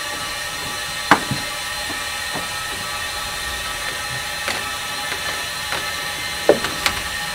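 Steady hiss and hum of the vacuum pulling the air out of the deflated packer through its push hose, with a few sharp knocks as the packer is slid out of the pipe: about a second in, midway, and twice near the end.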